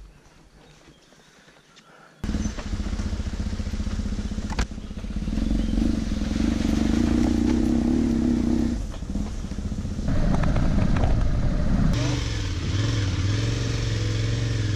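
Adventure motorcycle engine running while riding a rough dirt track. It comes in suddenly about two seconds in after a quiet start, holds a steady note through the middle, and near the end settles to a lower, wavering note.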